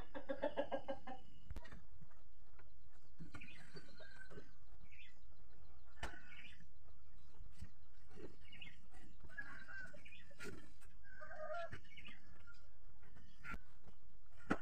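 Chickens clucking: a quick run of clucks right at the start, then scattered short calls. A few sharp knocks come in between.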